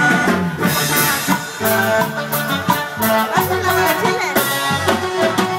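Latin American music playing, with sustained instrumental notes over a steady rhythm.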